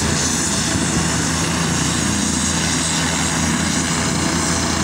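Air ambulance helicopter on the ground, its turbines and main rotor running at full speed just before lift-off: loud and steady, with no change in level.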